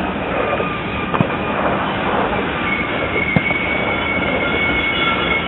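Freight train of coal hopper cars rolling past, with a steady rumble of wheels on rail, thin high wheel squeal tones that grow stronger about halfway through, and a couple of sharp clacks.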